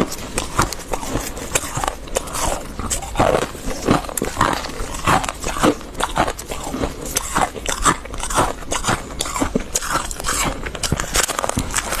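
Close-miked crunching of a large chunk of crispy freezer frost being bitten and chewed, a rapid, irregular run of crackling crunches.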